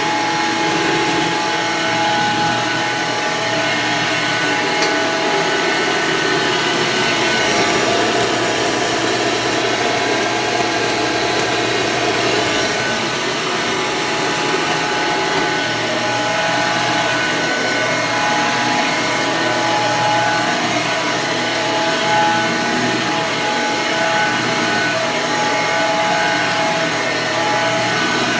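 Red Hoover vacuum cleaner's electric motor running steadily, a constant whine made of several held tones over a wide rushing hiss.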